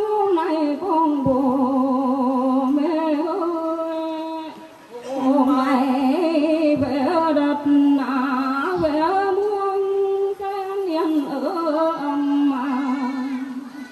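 A woman singing a Mường folk song unaccompanied into a microphone, amplified through a loudspeaker, in long held notes with a wavering vibrato and a brief pause for breath about five seconds in.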